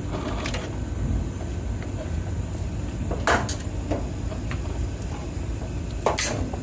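Lit gas grill burners running with a steady low rumble, broken by a few sharp clicks and knocks, the loudest a little past the halfway point.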